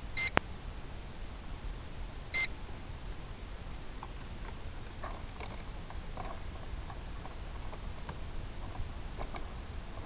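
Two short electronic beeps at the same pitch, the first right at the start and the second about two seconds later, over a steady hiss.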